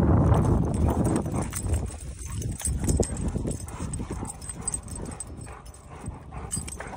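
Two Dogo Argentinos play-wrestling on dry grass: irregular scuffling, rustling and footfalls of paws and bodies. A low rumbling noise fades out over the first second or two.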